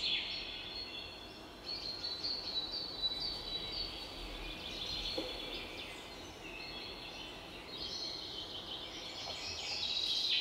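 Birds chirping and calling over a faint steady background hiss, a little louder near the end.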